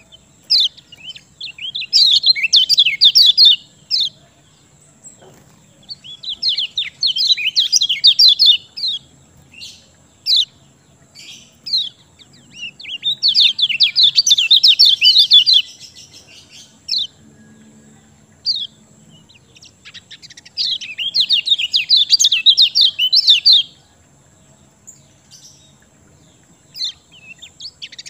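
Kecial kuning white-eye singing in four bursts of rapid, high chattering song, each two to three seconds long, with single short chip notes between them. This is a lively, full-voiced song used as a lure to set other kecial singing.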